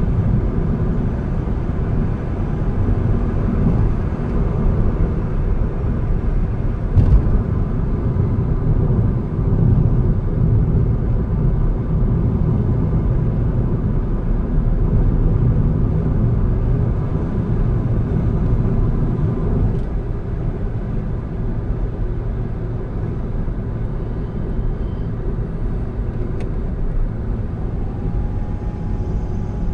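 Car driving along a road: steady low rumble of engine and tyres, with a single knock about a quarter of the way in. A faint steady tone comes in near the end.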